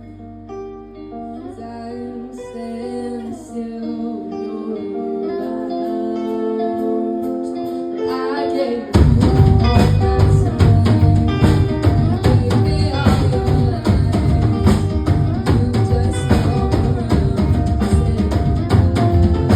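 Live rock band playing. Guitar and singing build for the first nine seconds or so, then drums and bass crash in and the full band plays loud and driving.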